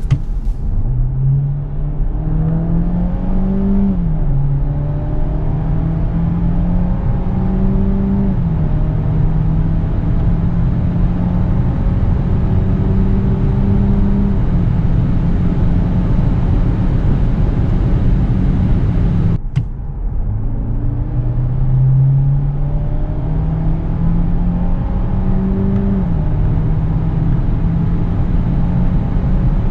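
Peugeot 508 HYbrid's 1.6-litre turbo four-cylinder petrol engine heard from inside the cabin under kickdown acceleration. Its pitch climbs and drops back at each upshift of the 8-speed automatic. About two-thirds of the way through, the sound cuts off abruptly and a second full-throttle run starts, climbing again with more upshifts.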